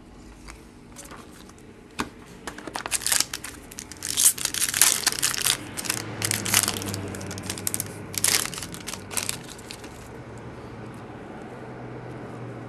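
Foil wrapper of a hockey card pack being torn open and crinkled by hand: a rapid, irregular crackle that runs from about two seconds in until near the end, then dies down.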